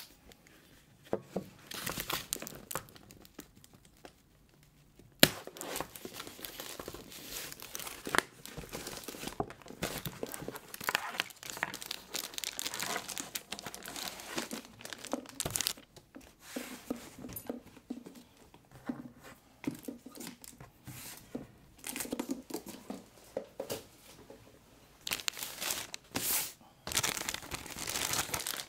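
Hands opening a cardboard shipping box and handling a boxed figure in clear plastic wrap: irregular crinkling of the plastic film and rustling, tearing cardboard, with a few sharp clicks and one pause of about two seconds near the start.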